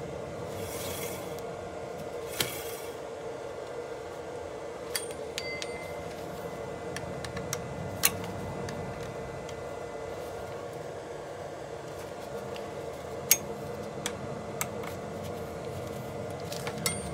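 Occasional sharp metallic clinks of hand tools and screws against an electric scooter's brake caliper as it is refitted, about six over the stretch, over a steady background hum.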